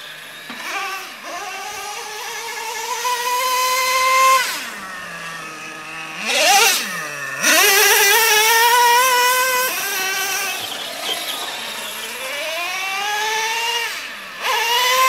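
Small nitro engine of a Revo RC truck revving at high pitch in repeated runs: the note climbs and holds as the truck speeds across the dirt, drops sharply as it lets off the throttle, then climbs again, several times over.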